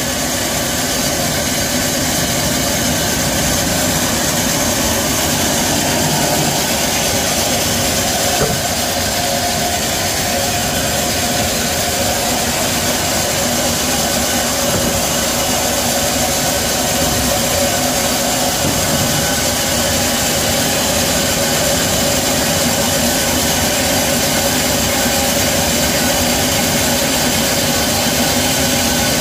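Sawmill band-saw headrig running with a steady, even mechanical drone.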